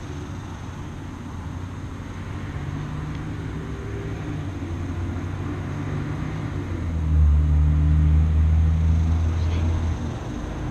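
A low, steady engine-like hum with a rumble beneath it, swelling louder from about seven seconds in and easing off near ten seconds.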